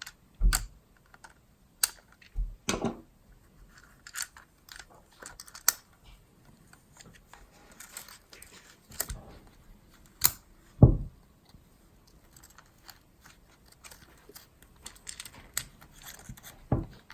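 Scattered clicks, taps and light knocks of a plastic Hatchimals toy being handled, coming irregularly, a few with a dull thud.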